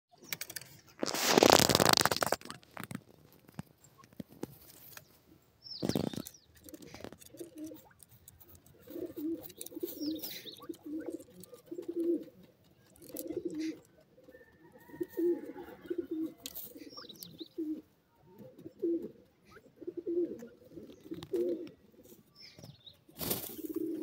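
Grey francolins dust-bathing in dry sand: a loud burst of wing-fluttering and scattered sand about a second in, with shorter bursts around six seconds and near the end. Through the second half come soft, low, cooing bird calls, repeated in short runs.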